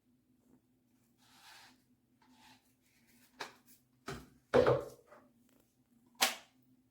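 A few short knocks and a soft rustle over a faint steady low hum, the loudest knock about halfway through.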